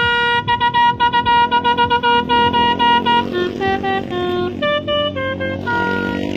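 Basuri telolet horn playing a fast tune of short, staccato notes: a run repeated on one pitch, then notes stepping lower and back up. A low rumble runs underneath, and a hiss comes in near the end.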